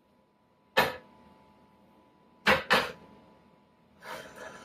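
A cooking utensil knocking against a frying pan while butter and olive oil melt: one sharp knock about a second in, two quick knocks near the middle, then a short stretch of scraping and rattling near the end.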